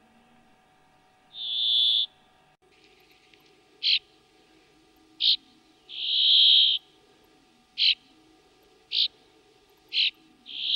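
A small bird calling: short, sharp notes about one to one and a half seconds apart, mixed with three longer drawn-out calls at the same high pitch.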